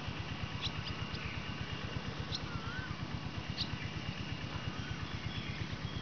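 Birds calling over open wet farmland: a few short, sharp high chirps and a warbling whistled note. Under them runs a steady, low rhythmic throb, which is the loudest sound.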